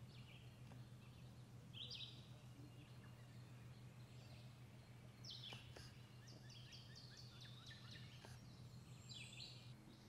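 Faint songbird song. There is a short phrase about two seconds in, a longer run of quick repeated high notes from about five to eight seconds, and another short phrase near the end, all over a low steady hum.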